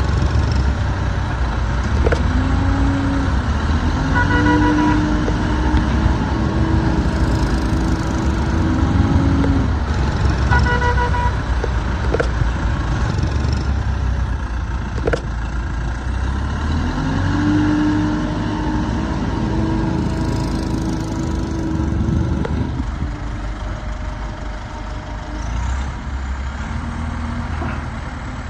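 Diesel engine of a Terex/Fermec 760 backhoe loader running, revving up twice and holding as it works under load. There are short beeps in two brief groups and a few sharp clicks.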